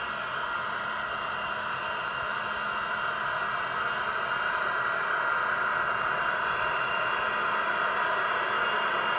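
Sound unit of a G scale BNSF Dash 9 model locomotive giving a steady dynamic-brake fan hiss with a faint whine as the train runs downgrade, growing louder as it comes toward the microphone.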